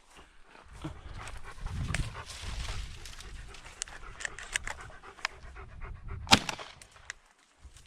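A retrieving dog panting hard and unevenly, with scattered sharp clicks and one loud sharp knock about six seconds in.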